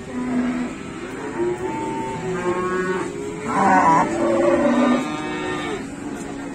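Several cattle mooing in overlapping calls at different pitches, loudest about halfway through.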